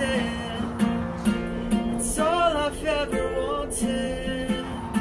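Background song: acoustic guitar strumming steadily, with a voice singing a melody over it.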